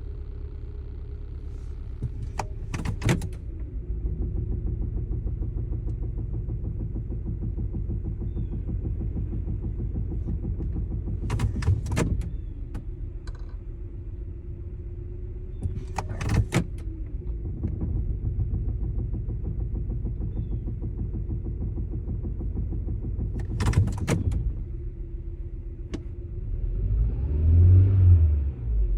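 2014 Kia Soul idling steadily, with a sharp knock four times, spread several seconds apart, each when the automatic transmission is put into drive. Near the end a louder low rumble with a wavering pitch rises and falls.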